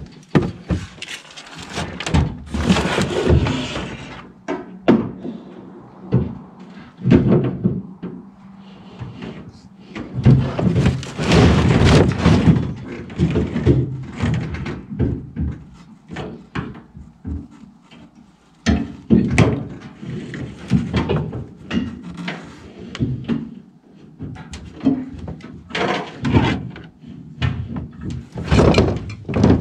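Irregular knocks, thuds and clatter of metal parts and tools being handled, coming in busy bunches with short lulls between.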